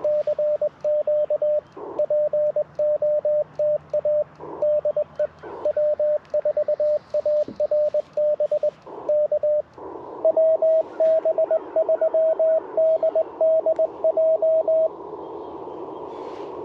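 Morse code (CW) from an Icom IC-705 transceiver on the 20-metre band. For about ten seconds the transceiver's steady sidetone keys out the operator's own sending over a quiet background, with brief puffs of hiss between words. Then the receiver's band hiss returns and another station answers in Morse at a slightly higher pitch for about five seconds, leaving only hiss near the end.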